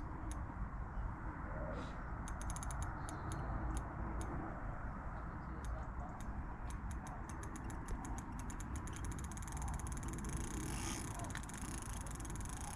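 Fishing reel ratcheting while a hooked carp is being played. The clicks are sparse and irregular at first, then come in a quicker run from about halfway through. Wind or handling rumble sits underneath.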